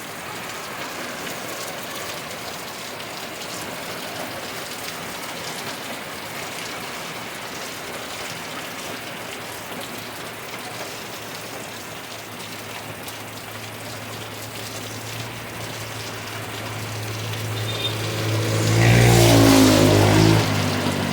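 Heavy rain falling steadily with an even hiss. Over the last several seconds a motor vehicle approaches and passes on the wet road: its engine hum builds and is loudest a couple of seconds before the end, then falls away.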